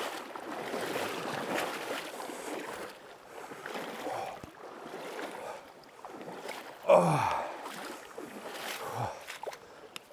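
Creek water rushing and splashing around bare feet as a person wades across a shallow rocky stream. About seven seconds in comes a short vocal sound that falls in pitch, the loudest moment.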